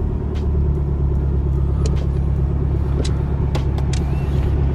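Nissan Silvia S15's four-cylinder engine idling steadily, heard from inside the cabin, with a few sharp clicks over it.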